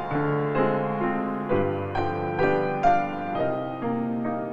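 Background music: a piano playing single notes at an even pace, about two a second, over held low notes that change every couple of seconds.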